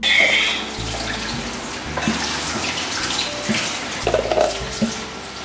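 Salted water boiling in a stainless steel pot, a steady bubbling hiss with small crackles, slightly louder for a moment at the start.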